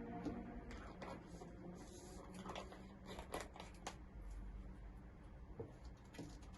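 Slime being squeezed and stretched by hand, giving soft irregular clicks and crackles.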